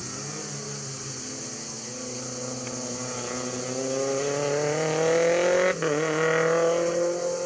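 Renault Clio Group A rally car's engine pulling hard up a climbing stage road, revs and loudness rising steadily as it approaches. About five and a half seconds in there is a quick upshift, a brief break in the sound, and then the revs climb again from a slightly lower pitch.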